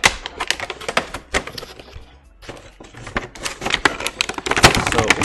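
Cardboard packaging box being handled and torn open: a run of sharp cracks and crackles, densest and loudest near the end.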